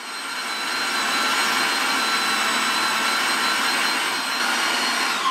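Electric meat mincer's motor running as it grinds chunks of pork, a steady whine and hum that builds over the first second and winds down with a falling pitch at the very end as it is switched off.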